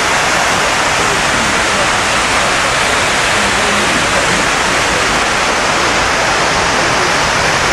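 Steady rush of water falling down the walls of the 9/11 Memorial reflecting pool into the basin, an even wash of noise with no breaks.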